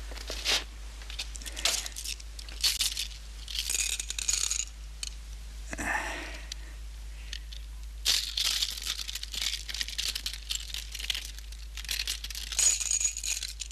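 Loose cut diamonds clicking and rattling against one another as they are handled and sorted, with crinkly rustling, in irregular spurts.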